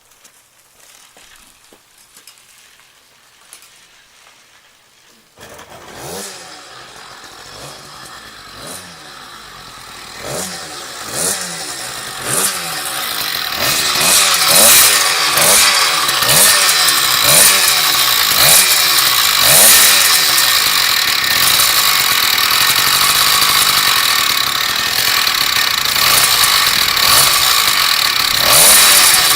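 Two-stroke motorized-bicycle engine with a Super Rat bottom end, NT carburetor and stock muffler. It catches about five seconds in after being rolled over, then runs with its revs surging up and down again and again, getting louder and then holding steady.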